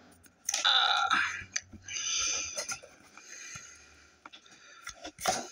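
Trading cards being slid off a stack and shuffled by hand: a papery swish about half a second in, a softer rustle through the middle, and a few light card taps near the end.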